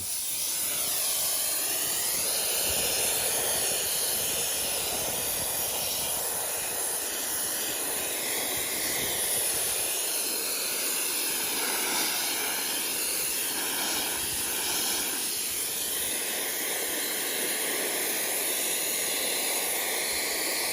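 Sandblaster blasting a stripped motorcycle part, a steady loud hiss of compressed air and abrasive that starts abruptly and holds at an even level.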